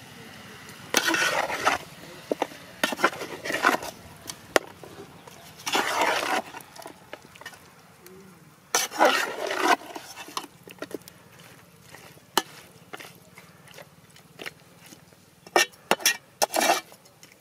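A slotted metal spoon stirring chicken pieces in an aluminium pot, in several short bursts of scraping with clicks and knocks of the spoon against the pot.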